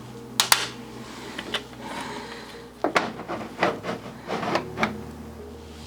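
Plastic clicks and clacks of a 3D-printed filter housing and small neodymium magnets being fitted against the printer's back panel: a few sharp knocks over a steady low hum.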